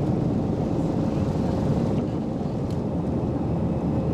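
Airliner cabin noise during takeoff and climb: a steady low rush of jet engines and airflow with a faint steady hum, heard from inside the cabin.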